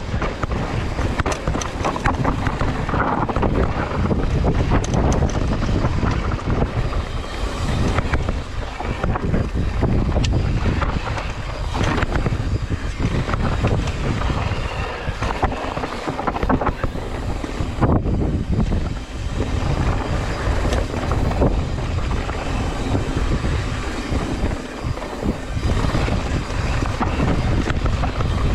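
Mountain bike descending a rough, loose trail: tyres rumbling over dirt and rock, the bike rattling and clacking with many short knocks, and wind buffeting the microphone.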